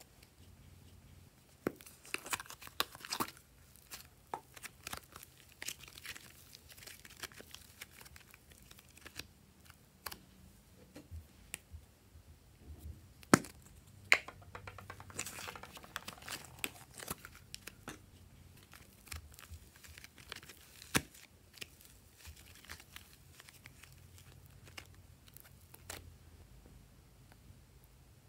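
Small plastic slime cups being handled and opened: crinkling, crackling plastic with scattered sharp clicks, in irregular clusters.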